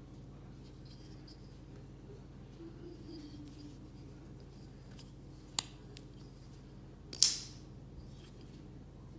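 Microtech L.U.D.T. folding knife clicking as its blade is worked: a sharp click about halfway through, then about a second and a half later a louder metallic snap with a brief ring as the blade locks.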